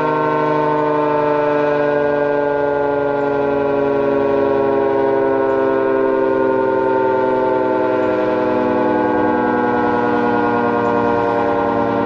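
Federal Signal 3T22 three-tone electromechanical warning siren sounding its loud, steady chord. The whole chord slides slowly lower in pitch as the siren winds down.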